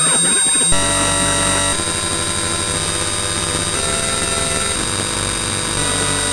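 Loud, harsh cacophony of many steady tones stacked over a noise haze, shifting abruptly about a second in and again just before two seconds.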